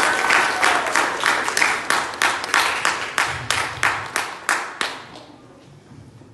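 A small audience applauding, the clapping thinning out to a few scattered claps and dying away about five seconds in.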